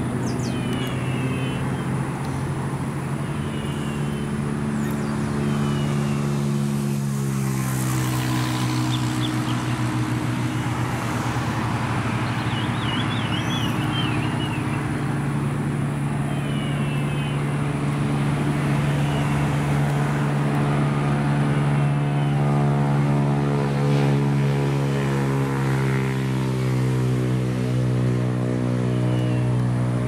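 A motor engine running steadily, its hum stepping up in pitch about seven seconds in and then holding. Small birds chirp now and then over it.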